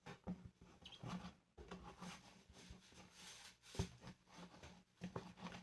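Faint, irregular soft clicks and sticky smacks of homemade slime being stirred with a spoon in a container, with one sharper click a little under four seconds in.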